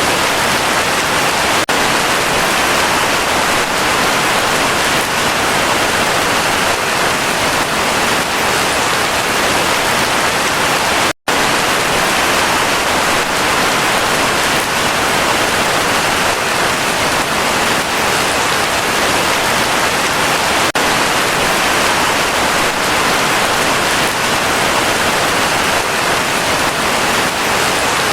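Heavy rain falling in a steady, dense hiss, broken by a split-second dropout to silence about eleven seconds in.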